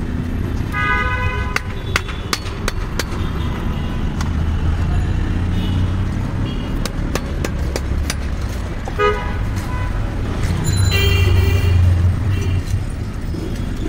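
Street traffic: a steady low engine rumble with vehicle horns honking several times, once about a second in, briefly around nine seconds and longer near the end. A run of sharp clicks falls in between.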